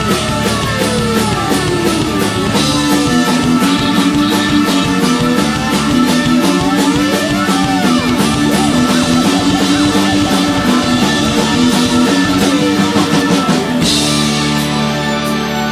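Live rock band playing loudly: drum kit keeping a steady beat under electric guitar, bass and keyboards. About 14 seconds in a cymbal crash lands and the band moves into long held chords.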